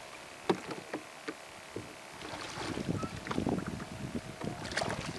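Knocks of a kayak paddle and gear against the kayak's hull, the sharpest about half a second in, then water splashing and sloshing around the hull from about two and a half seconds in as the kayak is pushed off from the shore.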